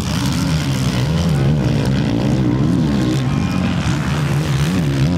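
Several four-stroke 450cc motocross bikes, a Suzuki RM-Z450 and a Kawasaki KX450F among them, racing close together, their engines revving up and down as the riders work the throttle through the turns.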